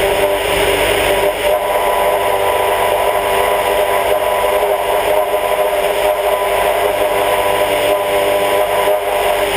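Sonex light aircraft's Volkswagen-based engine and propeller running steadily, with a strong rush of wind over the wing-mounted camera.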